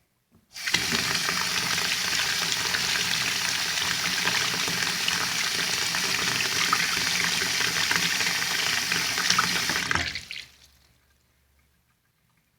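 Water tap turned on and running steadily into a vessel of water to make it bubble and take in air, shut off about ten seconds in.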